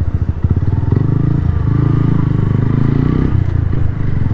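Suzuki Gixxer 150 Fi's single-cylinder four-stroke engine running under the rider, the engine note picking up about a second in and easing off a little past three seconds in.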